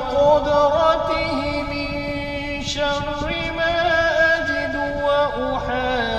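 A man's voice chanting an Arabic devotional recitation in a slow, melodic style, holding long notes that bend and slide between pitches.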